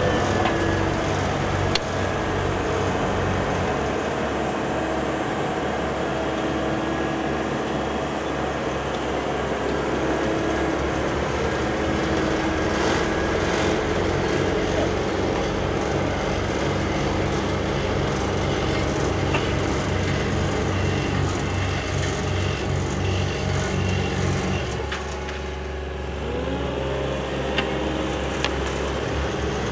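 Heavy diesel engines of road-paving machinery running steadily under work: a Dynapac F9-6W wheeled asphalt paver, then a tandem asphalt roller. About 25 seconds in the sound drops briefly, then an engine note rises and the steady running resumes.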